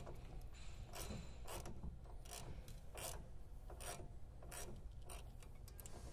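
Socket ratchet clicking as it turns a nut onto a 3/4-inch yoke bolt on a trailer hitch head, with short sharp clicks about twice a second, unevenly spaced.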